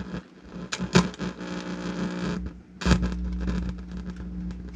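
Ground-loop mains hum from the Philips 406 turntable played through the amplifier and speakers, with scattered clicks and crackles; the hum jumps louder about three seconds in. The owner suspects a grounding fault or crossed audio lines.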